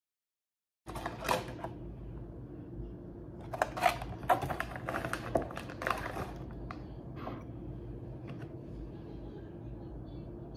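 Clicks, taps and rustling from handling a paper box of hojicha tea and a ceramic cup on a kitchen counter. One burst comes about a second in and a denser cluster between about three and a half and six seconds in, with a few lighter ticks after, over a steady low hum.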